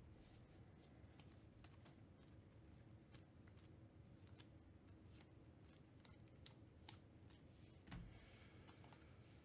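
Faint clicks and slides of glossy Panini Mosaic football trading cards being flipped off a stack one at a time, about one or two a second, with a soft knock about eight seconds in.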